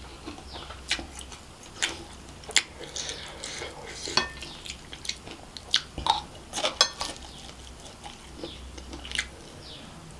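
Close-miked eating sounds: chewing and wet mouth clicks and smacks, with a spoon clicking and scraping on a plate as spoonfuls of kottu are taken. Sharp clicks come scattered throughout, loudest about two and a half and seven seconds in.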